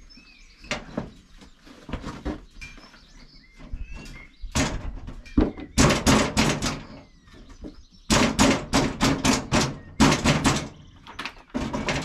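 A plastic bucket full of sawdust being handled under a bandsaw mill: scattered knocks, then two runs of loud knocks and thuds, about four seconds in and again about eight seconds in.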